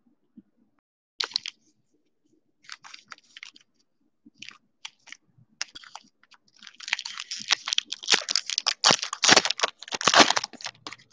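Foil trading-card pack wrapper crinkling in the hands in short bursts, then torn open with dense, loud crackling from about seven to ten and a half seconds in.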